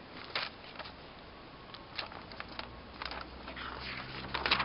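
Handling noise: scattered rustles and small clicks, with a louder rustle about half a second in and a cluster of rustles near the end.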